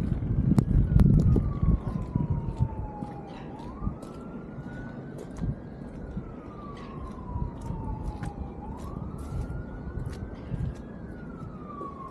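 An emergency-vehicle siren wailing in a slow cycle, a quick rise then a long falling tone, repeating about every five seconds. Wind buffets the microphone in the first couple of seconds, and faint scattered clicks run throughout.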